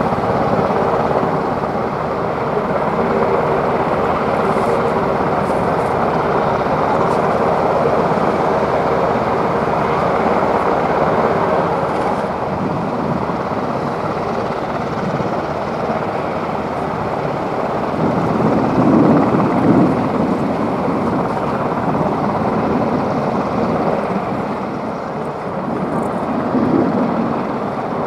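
Steady, loud engine drone of military vehicles or aircraft, swelling louder about two-thirds of the way through.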